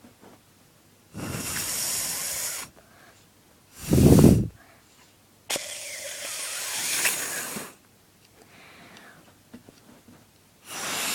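Breath blown hard through a homemade straw reed horn, a drinking straw flattened and cut to a point, that gives only breathy hissing and no buzzing horn note: the straw reed fails to sound. Several blows of one to two seconds each, with a short, louder puff about four seconds in.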